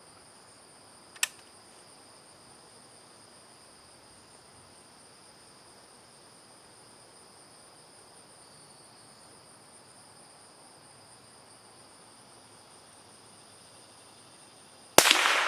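Steady high-pitched chirring of field insects, with a single click about a second in. Near the end, one sharp shot from a CZ 452 American bolt-action .22 LR rifle.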